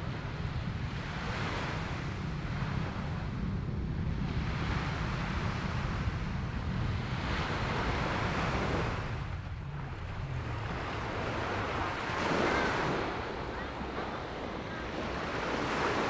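Sea waves washing onto the beach, the rush of surf swelling and fading every four or five seconds, with wind rumbling on the microphone.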